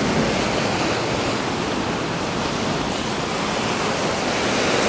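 Ocean surf washing onto a sandy beach: a steady rush of noise.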